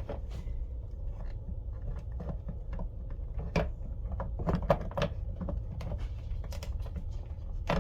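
Irregular clicks and knocks of a Lionel CW80 transformer's case parts being handled and pushed together, not seating because the power cord is out of place; a low steady hum runs underneath.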